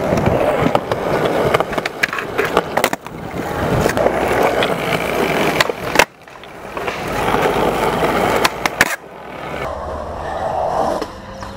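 Skateboard wheels rolling on concrete, broken by sharp clacks of the board being popped and landing; the loudest clack comes about six seconds in. The rolling sound shifts abruptly a couple of times.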